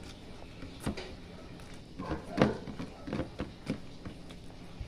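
Eating sounds from a person eating soft pork head adobo by hand: chewing and smacking with scattered short clicks, the loudest about two and a half seconds in.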